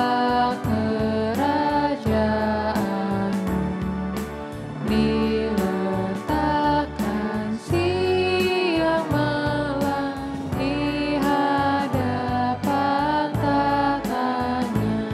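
Worship team of women's and men's voices singing an Indonesian hymn into microphones, over keyboard accompaniment with a regular beat.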